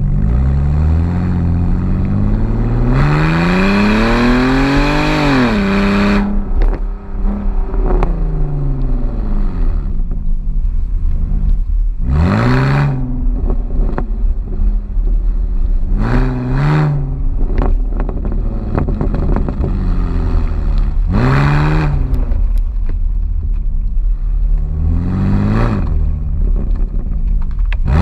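Exhaust of a BMW Z4 3.0-litre straight-six with its rear silencer deleted, under way. It revs up in one long pull over the first few seconds, then comes off the throttle with a few sharp pops. Several shorter bursts of revs rise and fall later.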